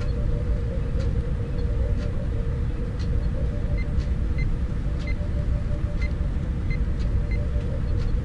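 Motorised display turntable running, a steady low hum with a faint tick about once a second.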